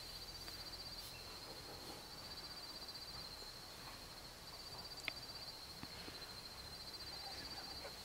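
An insect trilling steadily at a high pitch, with one short sharp tick about five seconds in.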